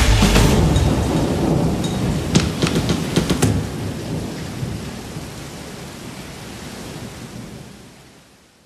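Thunder-and-rain sound effect: a low thunder rumble dying away about half a second in, a few sharp cracks over the next three seconds, then the rain hiss fading out gradually.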